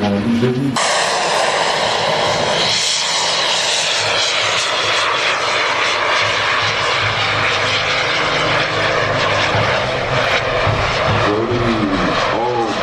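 Turbine engines of radio-controlled model jets, a loud steady rushing hiss and whine that rises and falls in pitch about three seconds in as a jet passes. Music is heard briefly and cuts off abruptly under a second in.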